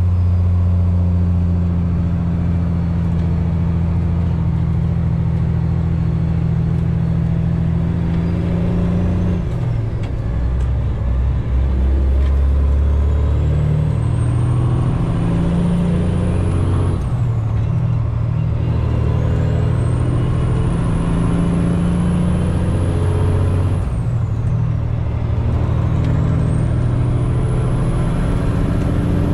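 Semi-truck diesel engine, heard from inside the cab, running at a steady note and then pulling through the gears from about a third of the way in. At each of several shifts the engine note drops and then climbs again. In the second half a high turbo whistle rises three times as the engine pulls.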